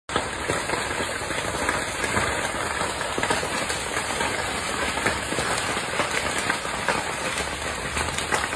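A wooden house burning fiercely: a steady rush of flame with constant crackling and popping.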